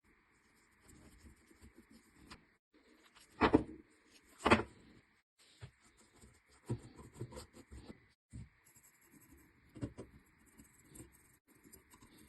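Rubbing and scraping of an M7 bayonet being cleaned by hand, in soft irregular strokes, with two sharp knocks about three and a half and four and a half seconds in.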